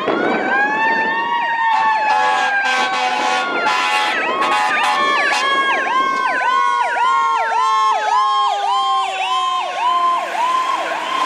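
Fire engine sirens on an emergency response: an electronic siren warbling in quick swoops, about two and a half a second, over a Federal Q mechanical siren that rises at the start and then winds down slowly in pitch.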